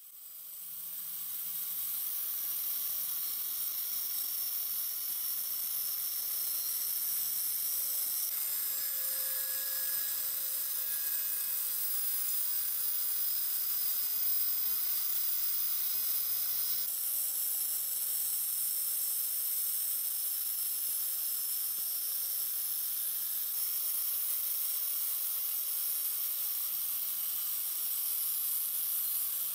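Angle grinder with an abrasive disc grinding the steel tang of a rusty hunting knife: a steady high hiss of the disc on the metal over the grinder's motor hum. The tone shifts slightly about eight and seventeen seconds in.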